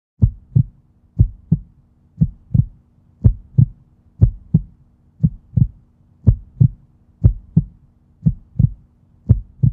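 Heartbeat sound effect on an outro: paired low thumps, lub-dub, about one pair a second, ten pairs in all, over a faint steady low hum. It starts just after the cut to the end card.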